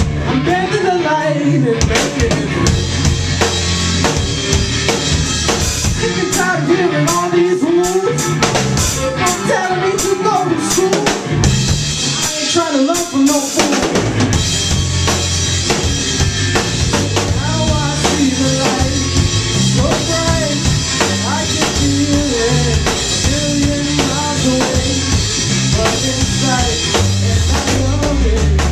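Live blues-rock band playing an instrumental stretch with no singing: drum kit, bass guitar and electric guitar. The bass and drums drop out for a moment about halfway through, then the full band comes back in.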